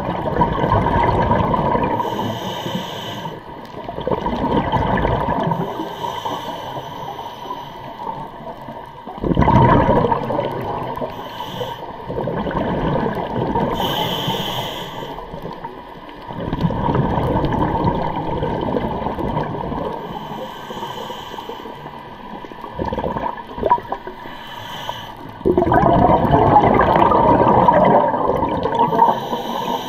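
Scuba regulator breathing underwater: bubbly exhalations every few seconds, each followed by a short hiss of inhalation.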